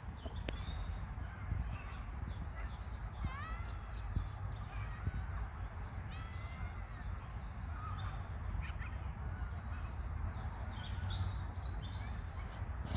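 Songbirds chirping and singing in short, quick phrases that glide up and down in pitch, over a steady low rumble.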